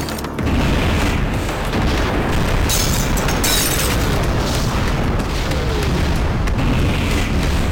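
A car explosion, a film sound effect: loud booms that run on as a sustained deep rumble.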